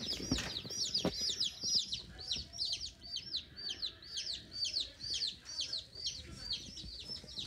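A box of about ten day-old chicks peeping without pause: many short, high peeps that fall in pitch, several a second and overlapping. Two dull knocks in the first second or so.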